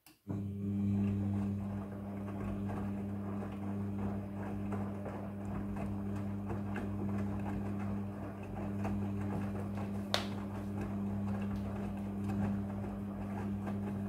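Front-loading washing machine running a wash: a steady motor hum as the drum turns, with light clicks and taps from the tumbling wet load. One sharper click about ten seconds in.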